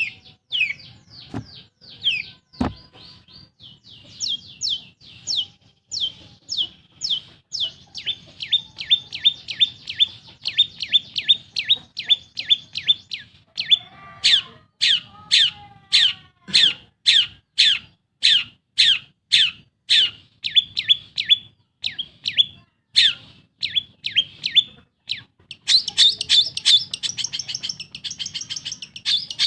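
Long-tailed shrike singing a long series of sharp, falling chirps, about two to three a second, which breaks into a rapid chattering trill near the end.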